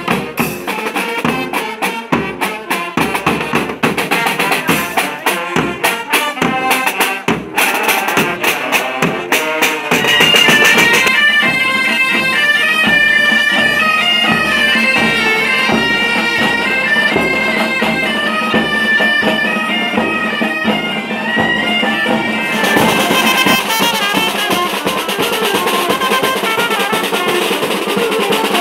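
Street folk music: rhythmic drumming and percussion at first, then after about ten seconds a bagpipe band playing a melody over a steady drone with drums, and near the end a charanga brass band with trumpets, saxophones, snare drum and cymbals.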